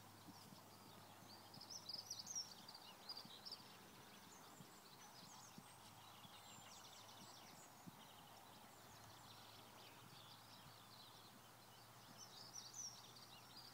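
Near silence: faint outdoor ambience with faint high bird calls now and then.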